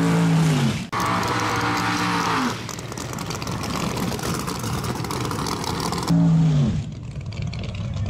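Drag-racing car engines revving high, each rev held and then falling away as the throttle is lifted, three times with abrupt breaks between, and a rough engine rumble in the gaps.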